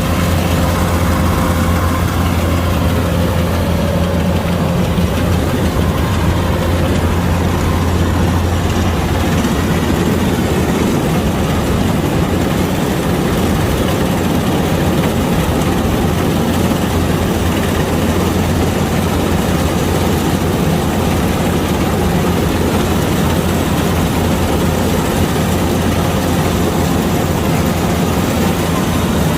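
Kubota DC-105X rice combine harvester's diesel engine running steadily with a low, even drone, the machine working without let-up.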